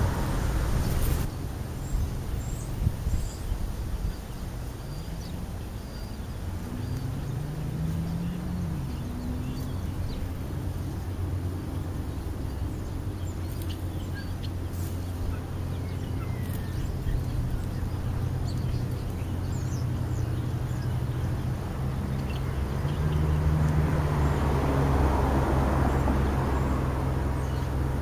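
Road traffic: a steady low engine hum from passing vehicles. The pitch rises about a third of the way in, and a louder car passes near the end. Faint short bird chirps come through in between.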